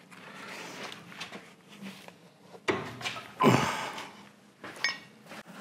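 Heavy lathe clutch and pulley drum being slid off its spindle and lifted away: metal scraping and knocking, with a louder scrape-and-knock about three and a half seconds in. A short metallic ring comes near the end.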